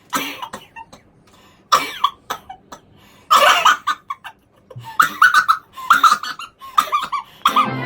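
A person coughing in a series of separate harsh bursts, the later ones coming closer together.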